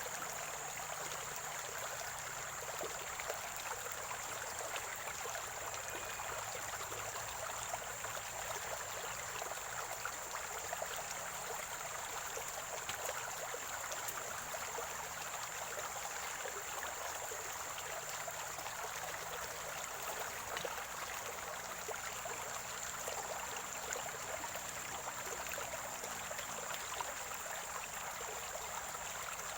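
Shallow spring-fed stream gurgling and trickling steadily over stones, with a steady high-pitched whine throughout.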